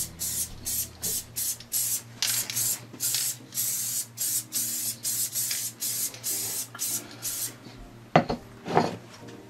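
Elmer's Craft Bond spray adhesive hissing from an aerosol can in quick short spurts, stopping a couple of seconds before the end. Near the end come two loud knocks.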